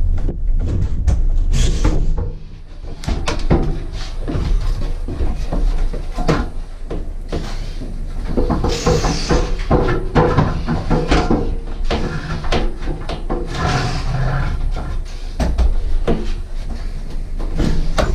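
Irregular knocks, scrapes and creaks as a heavy cast iron bathtub is worked into place on straps and wooden boards.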